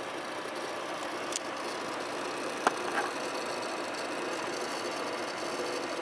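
Steady whir of a running PC's fans, including the Zalman twin-fan cooler on a GeForce GTX 750 Ti graphics card. A sharp click sounds once about two and a half seconds in, with a couple of fainter ticks around it.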